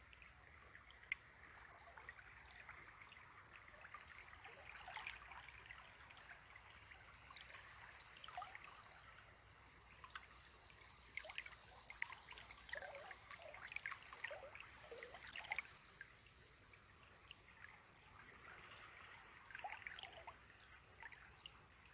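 Faint trickling and dripping of river water, with scattered small plops and ticks that come thickest in the middle and near the end.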